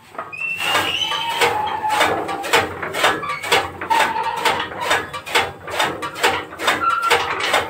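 Hand-operated chaff cutter chopping rice straw: the flywheel blades clack through the straw in quick, even chops, about three or four a second, with a few short squeaks over them.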